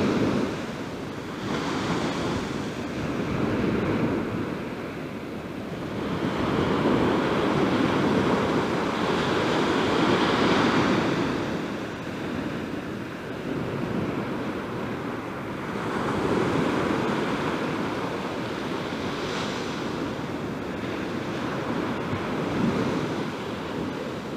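Sea surf breaking and washing up a beach, the rush swelling and fading every few seconds.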